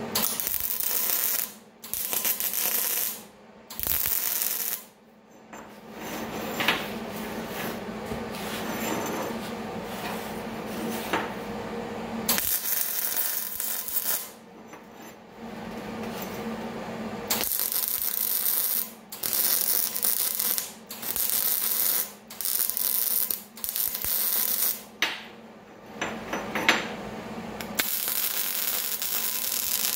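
Wire-feed (MIG) welder arc crackling in about a dozen short welds, each one to a few seconds long, with brief pauses between them, as a steel handle is welded onto a threaded fitting.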